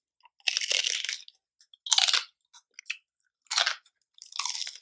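Crunchy chewing of a mouthful of crispy fried pork, in about five separate crunching bursts.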